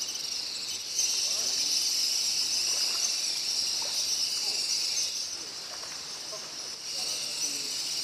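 Steady high-pitched chirring of insects, louder from about a second in and easing off a little after about five seconds.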